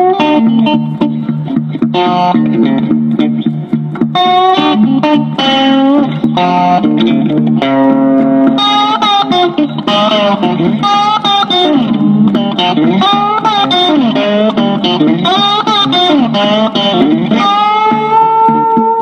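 Background music: an electric guitar with effects plays a melody with note bends, ending on a held note.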